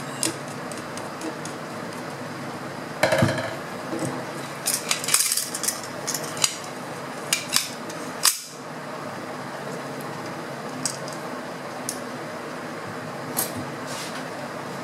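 Metal tools and air-rifle parts clinking and knocking on a workbench as a screwdriver is set down and the rifle's stock is handled. A cluster of clatters comes about three to six seconds in, then a few single sharp clicks.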